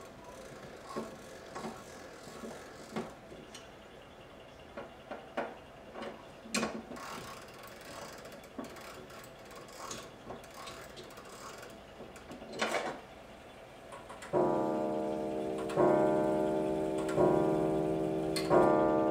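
Double fusee wall clock striking the hour on its gong: four ringing strokes about a second and a half apart, each dying away slowly, starting about two thirds of the way in. Before the strike, scattered light clicks from the clock's movement.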